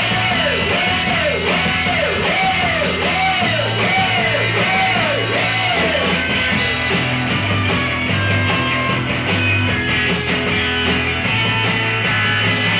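Rock band playing live: electric guitars, bass guitar and drums. A swooping figure repeats about twice a second through the first half, then gives way to steadier held bass notes.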